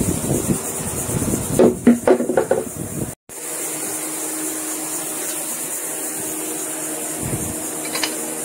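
Plastic bodywork and the minibike frame being handled, knocking and clattering for about three seconds. After a short break, a steady hum with a high hiss runs on evenly.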